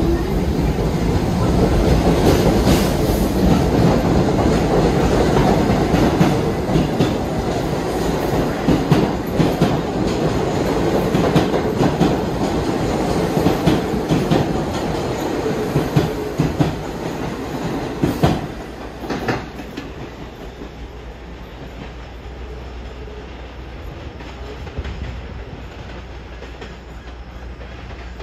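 New York City subway train running through the station, its wheels clicking over the rail joints, then fading away about 19 seconds in.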